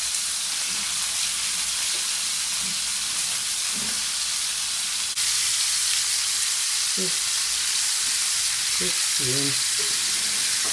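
Galunggong (mackerel scad) frying in hot oil in a small pan, a steady sizzle that gets suddenly louder about five seconds in.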